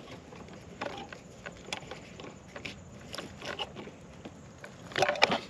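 Small metal clicks and scrapes as a screwdriver pushes a grounding clip onto the edge of a metal electrical box, with a louder cluster of clicks about five seconds in.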